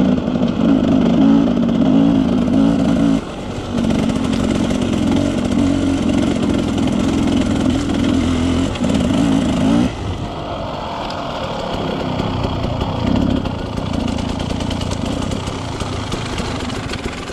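Off-road motorcycle engine heard onboard, pulling steadily under throttle up a climb, with a brief lift off the throttle about three seconds in. About ten seconds in it drops to a quieter, lower running as the bike eases off and slows.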